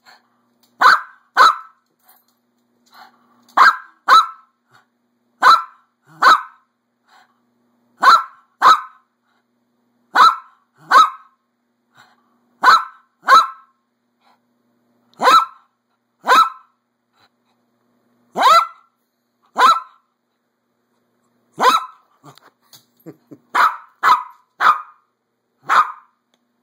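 Small dog barking sharp, high barks, mostly in pairs, a pair every two to three seconds, begging to be fed.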